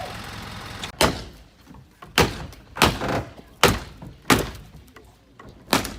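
A run of heavy knocks, about six loud ones starting about a second in, roughly one a second, with fainter knocks between them: debris from the storm-wrecked pulpit structure being knocked apart or dropped as it is cleared.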